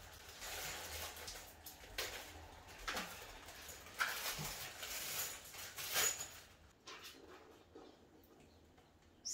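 A plastic hardware bag being handled and torn open: irregular crinkling and crackling, which dies down over the last few seconds.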